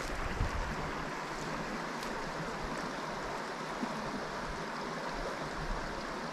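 Small woodland trout stream running, a steady rush of water.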